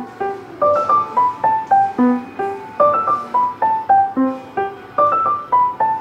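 Background piano music: a light melody of quick single notes, about four a second, repeating in a short loop of about two seconds.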